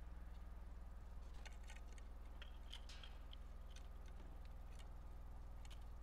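Steady low electrical hum with faint scattered clicks and a few brief high chirps, as a black-capped chickadee lands and picks through the seeds on the platform feeder.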